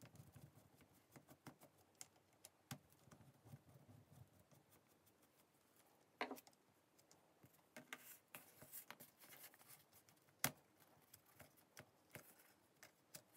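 Mostly near silence, with faint clicks and rustles of hands handling a corded drill's plastic trigger switch, cord and wires in its opened housing. A sharper click comes about six seconds in and another about ten and a half seconds in.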